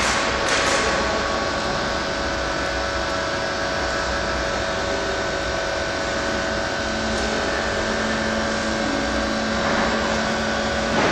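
Steady mechanical drone with several constant tones running through it; a lower tone joins about seven seconds in.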